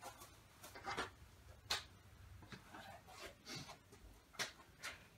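Quiet room with a few faint, scattered clicks and rustles, about five in as many seconds, like small handling noises. No engine is running.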